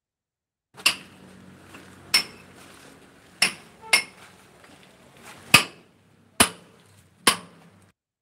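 Hand hammer striking a steel chisel seven times at an uneven pace, each blow a sharp metallic clink, as a groove is chased into a plastered masonry wall for electrical wiring.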